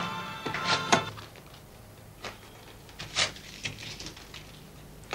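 A few light knocks and clicks, spaced a second or so apart, over a low steady room hum, with background music fading out in the first second.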